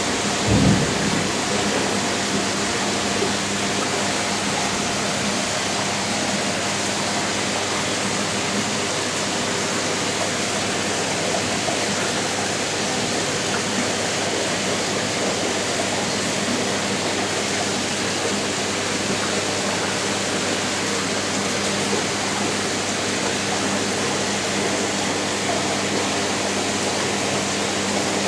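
Aquarium filter running: a steady rush of water over a low electrical hum, with a brief low bump in the first second.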